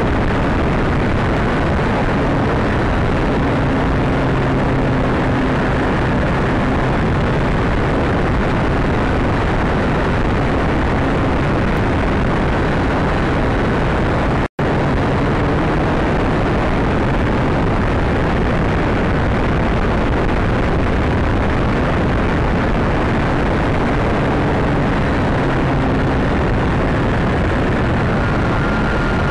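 Steady rush of wind buffeting the microphone of a small MD80 keychain camera mounted on the side of a flying radio-control plane, mixed with the plane's motor, whose faint pitch rises near the end. The sound cuts out for a split second about halfway through.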